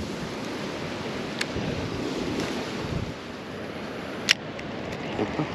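Wind buffeting the microphone, with a sharp click from the spinning reel about four seconds in.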